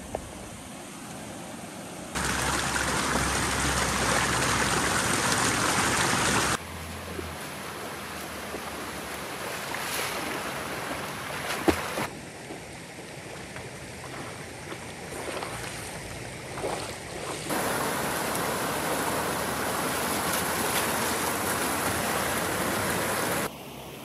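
Water rushing and splashing, in several segments that switch abruptly between louder and softer stretches. A few sharp knocks come in the quieter middle stretch.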